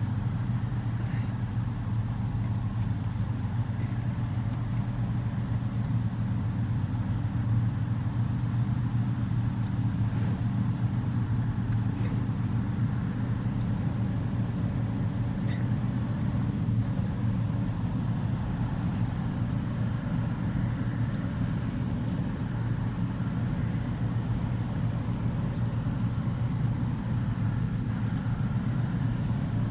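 Claas Trion 660 combine harvester running steadily while harvesting, a constant low drone of engine and threshing machinery.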